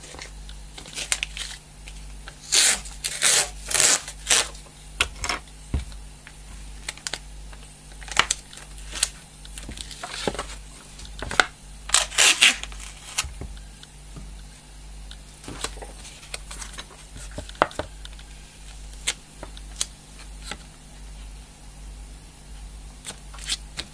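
Brown packing tape pulled off its roll in short rips, several in quick succession a few seconds in and again around the middle, with hands rubbing and tapping the tape down on cardboard in between.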